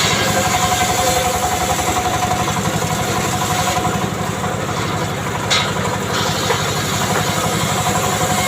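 An engine idling steadily with an even, fast low pulse.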